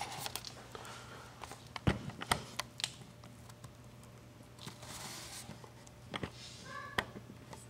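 Scattered light clicks and knocks from gear being handled and set down, irregular rather than rhythmic, the sharpest about two seconds in.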